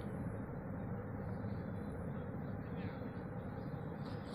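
Steady hubbub of a large crowd, many voices blending into an even murmur.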